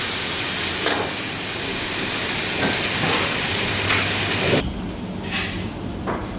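Small sea snails in their shells sizzling loudly in a hot wok of chili paste, with a few scrapes of a metal wok spatula. About four and a half seconds in the sizzle drops sharply to a quieter hiss with a couple of spatula clinks.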